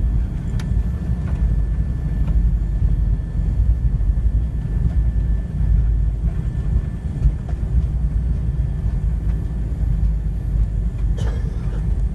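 Airliner cabin noise while taxiing after landing: a steady low rumble of the engines at idle and the wheels rolling on the taxiway, with a faint click about half a second in and another near the end.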